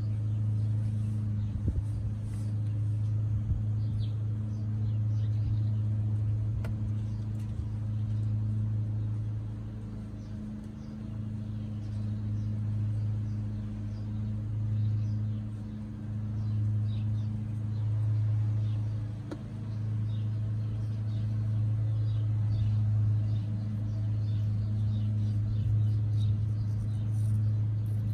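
A steady low mechanical hum, like an engine or motor running nearby, swelling and easing slightly, with faint scattered ticks over it.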